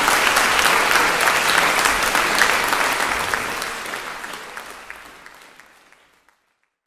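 Audience applauding, steady at first, then fading away from about three seconds in until it is gone near the end.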